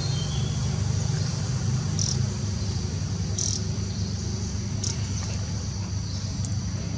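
Insects buzzing steadily at a high pitch, swelling louder three times, over a steady low rumble.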